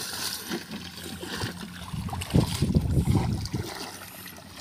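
Legs wading through shallow water in a flooded rice paddy, splashing and sloshing irregularly with each stride. About halfway through comes a louder, deeper rumble lasting about a second.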